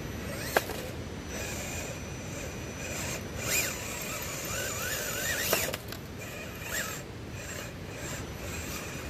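Electric motor and drivetrain of a Rcmodelex LWB Toyota Hilux scale crawler whining in short bursts that rise and fall in pitch as it is throttled up a rock face. A sharp click about half a second in and a knock near the middle, over a steady hiss.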